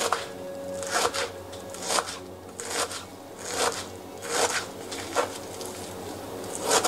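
Knife chopping fresh parsley on a wooden cutting board, about one cut a second, each stroke a short crunchy knock of the blade through the leaves onto the wood.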